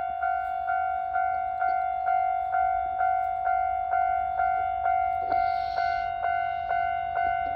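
Japanese level crossing's electronic warning bell ringing steadily, about two dings a second, with a brief hiss about five seconds in.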